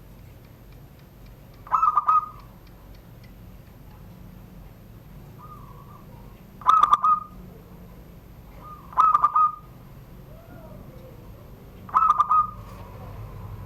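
Zebra dove (perkutut) singing its 'surung gdor' song: four short phrases of rapid, stuttering coos, each about half a second long, spaced a few seconds apart.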